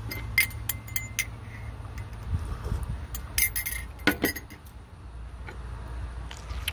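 Scattered light clinks and knocks of small hard objects, several ringing briefly, over a low steady hum; the sharpest come about half a second in and around three and a half to four seconds in.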